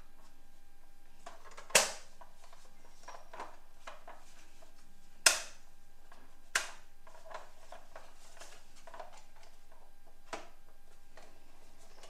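Hard plastic toy ambulance being handled: scattered clicks and clacks of its parts, with four sharper knocks spread through.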